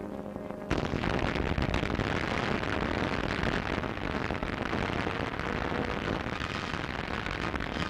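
Artillery bombardment: a dense, continuous din of gunfire and explosions that starts abruptly about a second in and carries on without a break.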